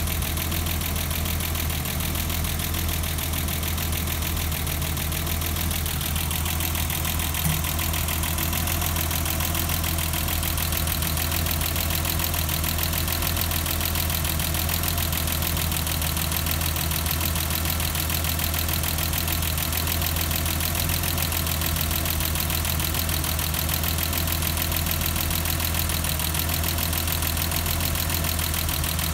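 BMW M20B25 straight-six engine of a 1989 BMW 325i idling steadily, with a brief knock about seven seconds in.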